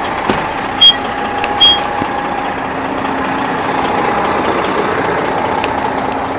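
Heavy diesel truck engine running steadily. Two short, loud high beeps sound about a second in.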